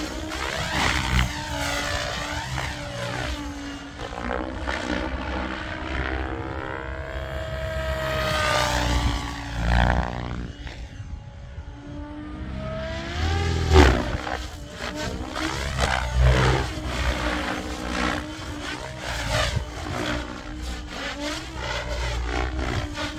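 Radio-controlled electric model aircraft flying past again and again, its motor and propeller whine sweeping up and down in pitch with each pass.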